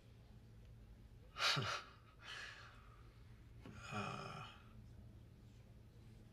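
A person's soft breathy exhalations, in sighs: one falling in pitch about a second and a half in, another about four seconds in. A low steady hum runs underneath.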